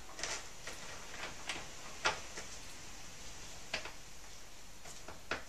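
Irregular light clicks and knocks, about eight of them, as the parts of a cat scratching post are handled while the top tray is lined up with its bolts.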